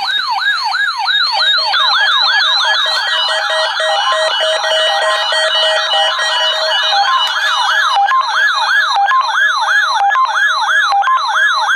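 Several NOAA weather alert radios sounding their alarms at once, set off by the Norton station's Required Weekly Test. It is a loud din of overlapping siren-like warbles, each repeating about three times a second, mixed with steady beeping from other units. More radios join in about a second in.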